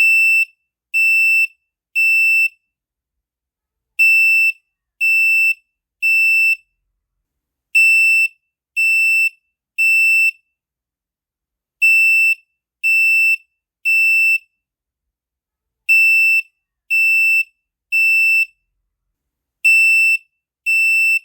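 中美防火 residential smoke alarm sounding its fire evacuation signal: loud, high-pitched beeps in groups of three, about a second apart, each group followed by a pause and repeating about every four seconds (the temporal-three alarm pattern).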